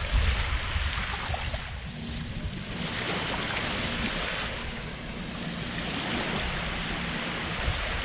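Surf washing onto the beach, swelling and easing every few seconds, with wind rumbling on the microphone.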